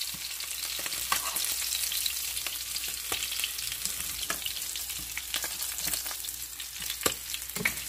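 Mackerel frying in hot oil in a pan: a steady sizzle with frequent crackling pops.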